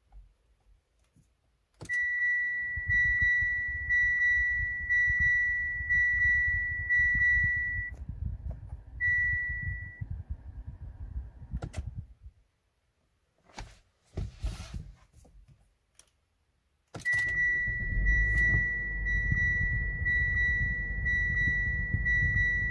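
2019 Mitsubishi Outlander SE engine starting about two seconds in and idling, while a high electronic dashboard chime pulses about once a second. The engine shuts off near the middle. A short rattle follows, then the engine starts again and idles with the chime sounding again.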